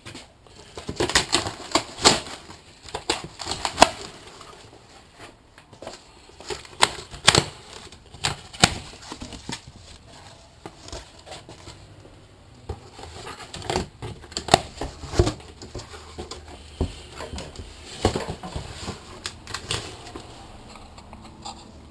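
Cardboard shipping box being opened and handled: irregular taps, clicks and scrapes of cardboard and packing.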